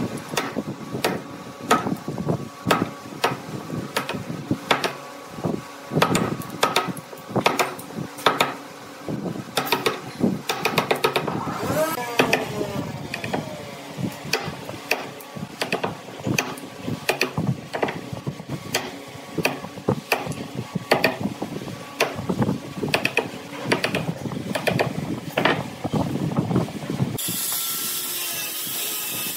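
Repeated sharp blows driving a wide wood chisel into the end grain of a round wooden block, splitting off chips in an irregular series of knocks. Near the end an angle grinder fitted with a sanding disc starts and runs steadily with a high hiss.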